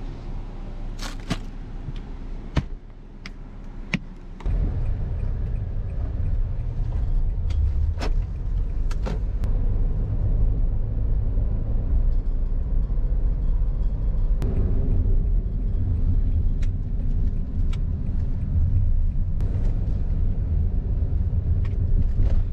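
A few sharp clicks and knocks as a drink bottle is handled over a plastic cooler box. About four and a half seconds in, a steady low rumble of a Honda car's engine and tyres on the road starts, heard from inside the cabin, with a few light clicks now and then.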